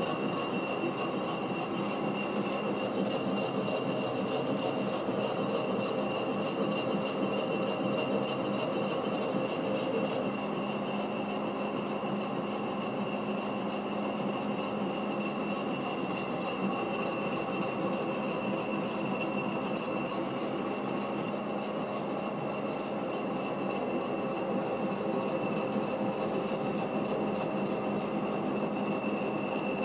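Monarch engine lathe running under power feed as a boring bar takes a 0.060-inch cut inside a long steel pipe turning in a steady rest. A steady mechanical drone with a thin, constant high whine over it.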